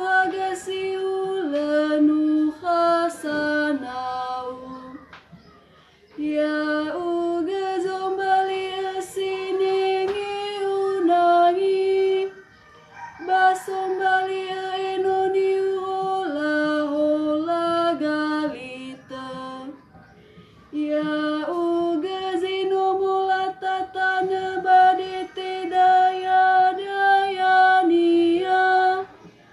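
A woman's solo voice chanting psalm verses in the Nias language to a psalm tone, unaccompanied. Each line is held on one reciting note and then falls at the cadence, in four phrases with short breaths between them.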